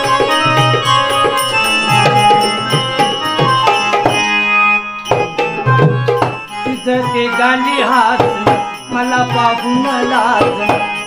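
Instrumental interlude of a Marathi folk song: electronic keyboard playing a melody over a steady dholki drum beat with small hand cymbals. The drumming breaks off briefly about four seconds in, and a wavering, bending melody line comes in over the second half.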